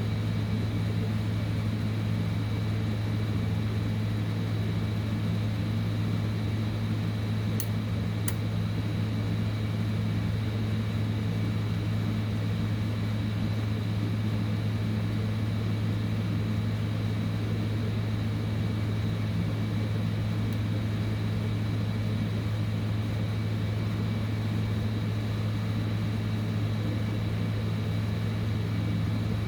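Hot-air heat gun blower running steadily with a constant hum and whine, used to heat MOSFET chips off a hashboard. Two brief ticks come about eight seconds in.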